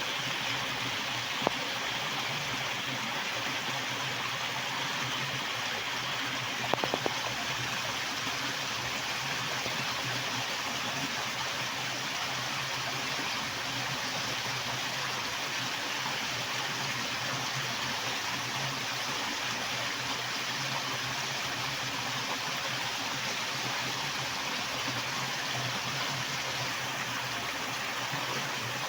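Water rushing in a strong, steady flow, a fast-running torrent. A sharp click sounds about a second and a half in, and a quick run of clicks comes around seven seconds in.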